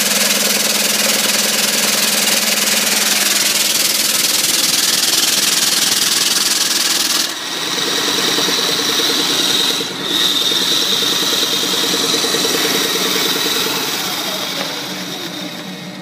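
Converted single-cylinder four-stroke steam engine running under generator load, with its exhaust steam hissing loudly out of an open discharge pipe. About halfway through the hiss drops, and the engine's fast, even beat comes through with a steady high whine.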